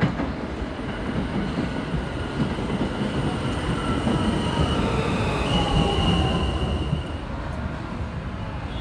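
R179 subway train coming along the elevated track: a steady rumble and rattle of steel wheels on the rails, with high-pitched wheel squeal through the middle. The sound drops off about seven seconds in.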